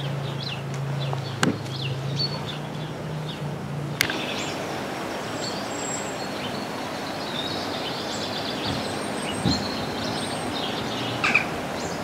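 A bumblebee buzzing steadily at a low pitch while small birds chirp. About four seconds in the buzz stops with a click, leaving garden birdsong over a steady hiss.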